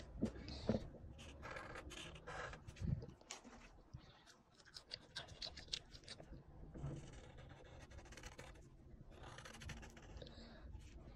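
Black Sharpie marker drawing on paper: faint, scratchy pen strokes in short bursts, with a few soft knocks, the loudest near the start.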